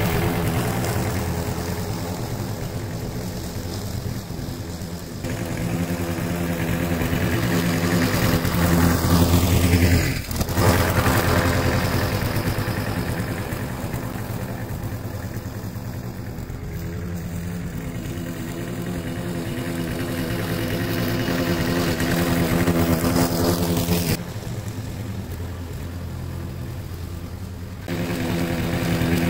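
Briggs & Stratton single-cylinder four-stroke engine on a walk-behind rotary lawn mower running steadily while cutting grass. It briefly dips about ten seconds in, and its loudness shifts abruptly a few times.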